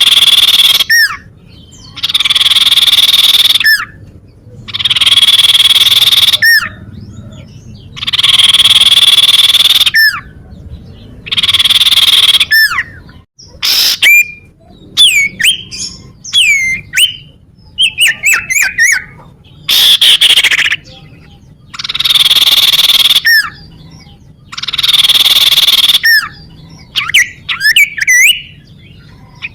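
Common iora (cipoh) calling: harsh buzzy trills of about two seconds each, repeated every few seconds, with quick sharp falling whistle notes between them and a busy run of such notes about halfway through.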